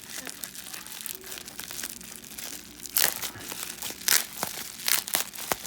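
Packaging being handled and unwrapped: plastic and paper crinkling and crackling in short strokes, with several louder sharp crackles about three, four and five seconds in.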